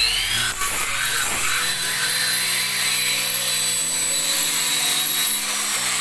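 Corded electric drill running steadily with a high whine, its bit boring a hole through a metal sliding-door handle rail, with metal shavings coming off.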